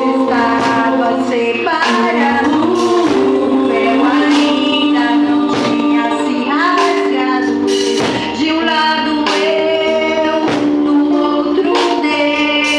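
Live worship group singing, led by female voices, over a band accompaniment with regular drum hits.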